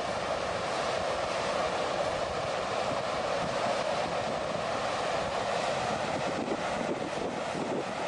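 Muddy flash flood (debris flow) rushing down a valley: a steady, dense rushing rumble of churning water, mud and debris.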